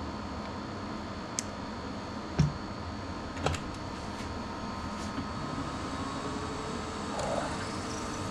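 Steady machine hum with a faint high whine. A few light clicks and knocks break it, the loudest about two and a half seconds in.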